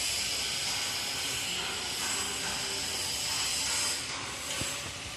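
A steady hiss that eases slightly near the end.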